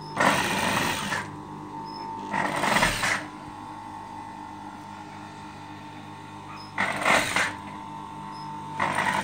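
Industrial sewing machine stitching through thick pile fabric in four short runs of about a second or less each, with a steady hum between the runs.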